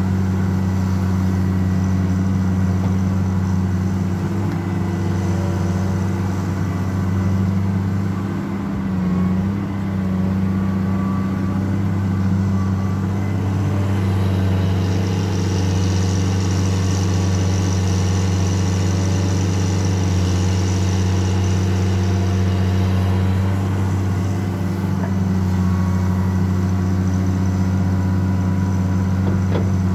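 Caterpillar 336D LME hydraulic excavator working in clay, its diesel engine running steadily under load. A high whine joins in for several seconds midway.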